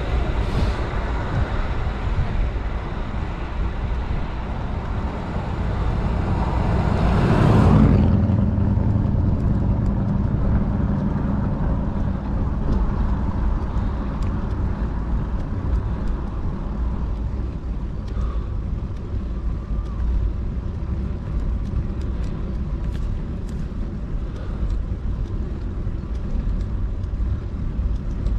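Wind and road noise while riding a bicycle. A bright rushing hiss swells to a peak and cuts off abruptly about eight seconds in, leaving a steady low rumble with faint ticks.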